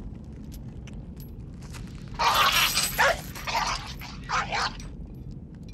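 Blue heeler barking in loud, harsh bursts from about two seconds in, the first the longest and loudest, then twice more over the next two seconds, over a low steady hum from the film's soundtrack.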